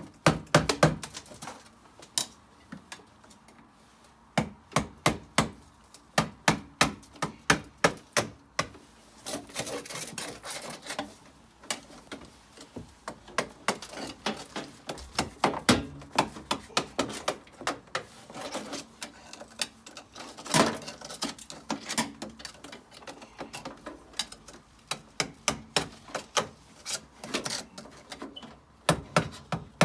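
Repeated sharp hammer blows knocking sand-and-cement mortar out from around a combi boiler's flue, coming in quick runs with short pauses.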